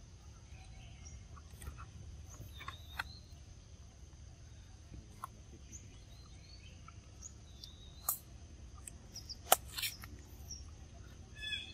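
Birds chirping intermittently over outdoor background noise and a steady high-pitched tone, with a few sharp clicks, the loudest about nine and a half seconds in.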